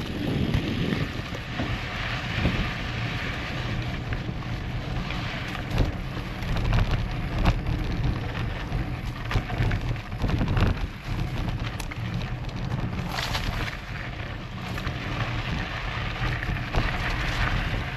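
Enduro mountain bike riding over a dry dirt trail: the tyres crunch and crackle over loose grit and dry leaves, with the bike rattling under a low rumble.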